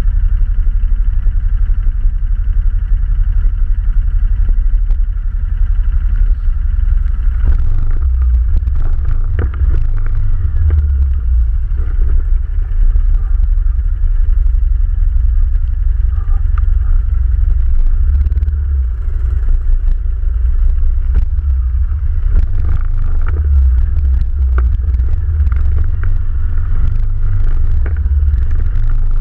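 ATV engine running under way, a steady low drone, with scattered knocks and rattles starting about eight seconds in.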